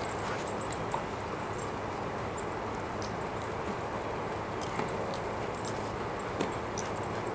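Dogs moving about, with faint jingling and small clicks at intervals over a steady background hiss.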